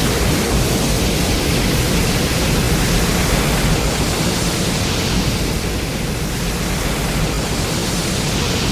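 A loud, steady rushing noise with a low rumble beneath it: a Godzilla film sound effect.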